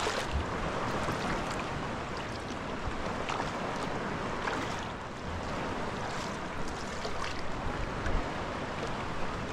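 Sea kayak paddling: Greenland paddle blades dipping into the sea in steady alternating strokes about every second or so, over the wash of water along the hull, with some wind on the microphone.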